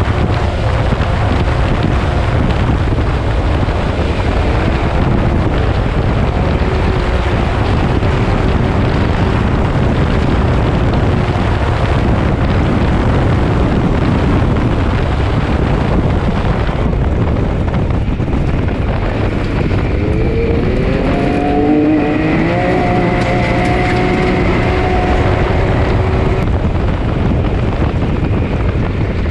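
Can-Am side-by-side's engine running under way on a rough dirt track, heard onboard under a dense rushing rumble; about two-thirds of the way through the revs climb twice in quick succession, pitch rising.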